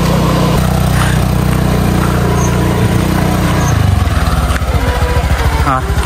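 A small engine running steadily. About four seconds in its note drops to a slower, pulsing one.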